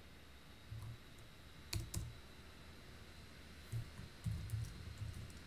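Computer keyboard keystrokes: a few scattered key clicks, with two sharper ones about two seconds in and a quick run of presses near the end.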